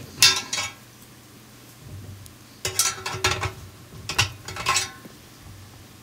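Allen wrench clinking and scraping against the perforated metal drum of a Miele tumble dryer as the 5 mm Allen screws locking the rear bearing are tightened, in three short bursts.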